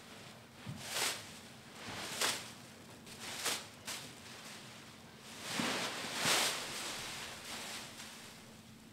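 Heaps of thin plastic bags rustling and crinkling in short swishes, about one a second, as a dancer stirs through them, with a longer, louder crinkling stretch about six seconds in.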